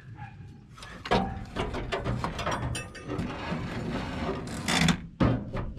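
Cast-iron cylinder head of a 1948 Diamond T's flathead six being worked loose and lifted off the rusty block: irregular metal scraping and clunking, with a loud scrape near the end and a sharp knock just after it.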